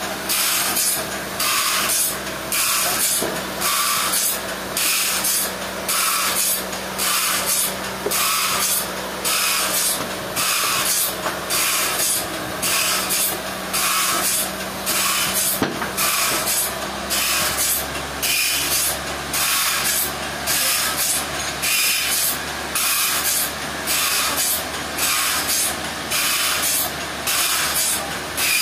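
Sawmill saw cutting through a trembesi log: a steady machine hum under a hissing rush that pulses evenly, about once every 0.7 s.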